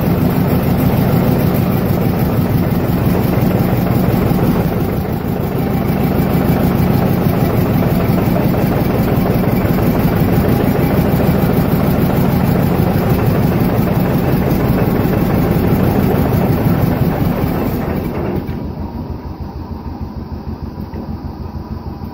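John Deere 720 two-cylinder diesel tractor engine running steadily with a fast, even beat after its head gasket repair. About eighteen seconds in the sound drops in level and turns duller.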